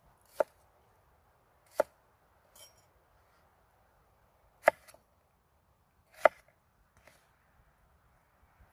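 A knife chopping on a wooden cutting board: four sharp chops, unevenly spaced a second or more apart, with a couple of lighter knocks between them.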